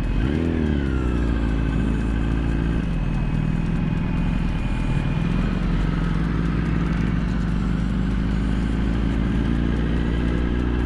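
Sport motorcycle engine at low, steady revs while riding at a crawl, with a brief rise and fall in revs about half a second in.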